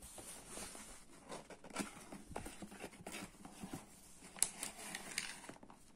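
Cardboard window box of a toy model van being handled and opened: card scraping and rustling, with scattered small clicks and a sharper click about four and a half seconds in.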